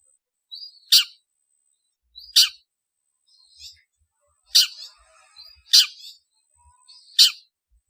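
Long-tailed shrike calling: five short, harsh calls spaced about a second or two apart, each led by a brief higher note, with fainter chatter in between.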